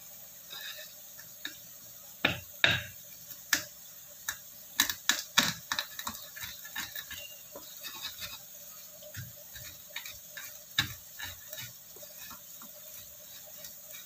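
Irregular sharp knocks and clatter of a stone pestle pounding spices in a mortar (ulekan), over the faint steady sizzle of tempe frying in oil in a wok.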